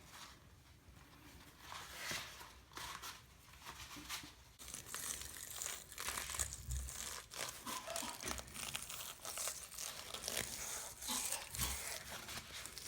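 Gloves being pulled onto the hands: irregular crinkling and rubbing, busier after the first few seconds, with a few soft bumps.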